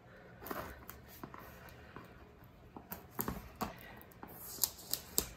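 Scissors cutting through the plastic shrink wrap on a cardboard box: faint, scattered snips, clicks and crinkles of the film, more of them in the second half.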